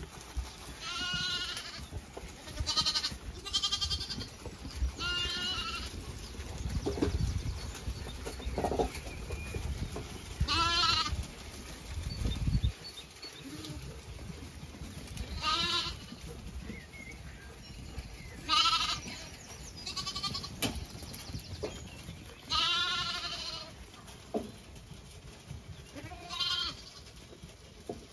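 Zwartbles lambs bleating, about ten high, quavering calls spread out with gaps between them, one held longer near the end. A low rumbling noise runs for several seconds near the middle.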